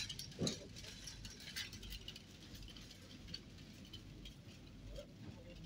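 Faint shop background noise: a low steady hum with scattered light clicks and rattles, most of them in the first couple of seconds.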